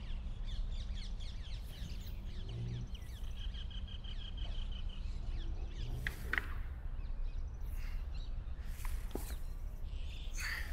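Outdoor ambience of small birds chirping, with a rapid trill a few seconds in, over a steady low rumble.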